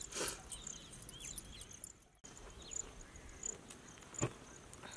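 Outdoor field ambience: insects trilling steadily, scattered short falling bird chirps, and two sharp knocks, one near the start and a louder one about four seconds in, with a brief gap in the sound about two seconds in.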